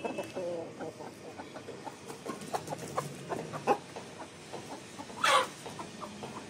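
Chickens clucking softly, with one brief, louder, sharper call about five seconds in.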